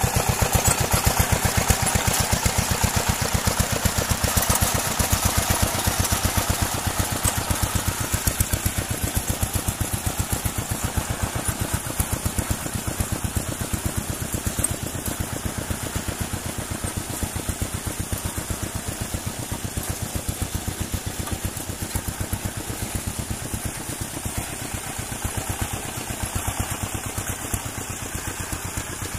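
An engine running steadily with a rapid, even pulse, slowly getting quieter.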